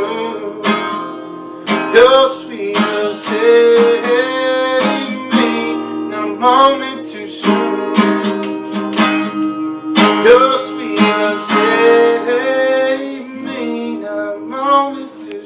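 Acoustic guitar strummed in chords, with a singer's voice holding long notes over it as the song's final chorus winds down.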